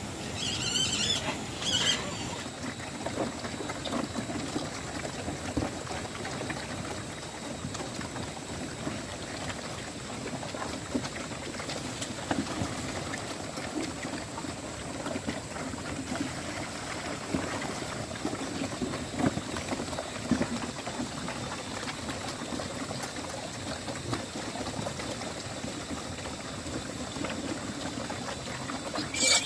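Water running and splashing steadily, with a few brief high squeaks about a second in and again near the end.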